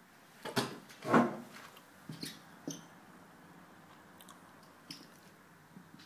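Handling noise: a few short knocks and rustles, the loudest about a second in, as the filming phone is moved about.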